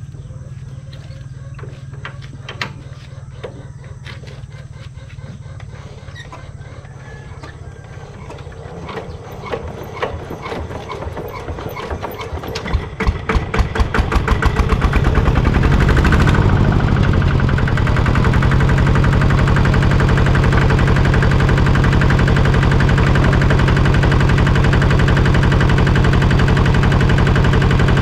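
Kubota two-wheel hand tractor's single-cylinder engine being turned over by hand: slow strokes that speed up from about a third of the way in, then the engine catches and, from a little past halfway, runs loudly at a steady fast putting rhythm.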